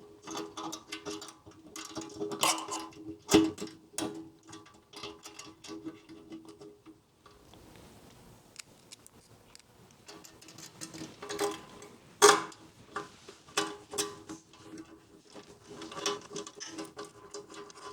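Hand tools working the bolts of a motorcycle toolbox mount: irregular clicking and sharp metal knocks, as when a ratchet or wrench tightens the bolts. The loudest knocks come about three seconds in and again about twelve seconds in.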